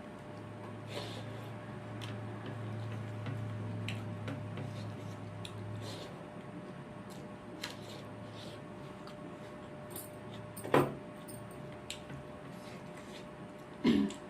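Mukbang eating sounds: a person eating rice and pork by hand, with small chewing and mouth clicks and light clinks of dishes over a steady low hum. Two louder sharp knocks come about eleven seconds in and near the end.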